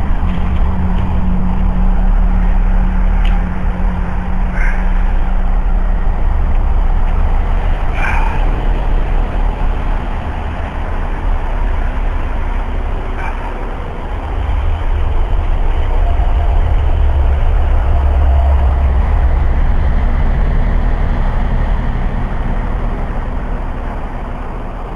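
Deep, continuous rumbling drone heard outdoors, a strange rumbling unlike thunder that seems to come from the air everywhere, with a steady low hum over it for the first several seconds. It dips a little past the middle, swells again, then fades toward the end, with the cellphone recording's level heavily boosted.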